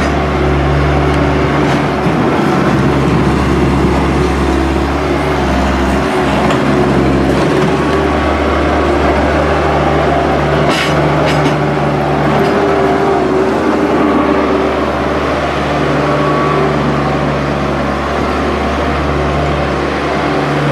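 Heavy construction machinery engine running steadily under load, with a few short clanks about eleven seconds in.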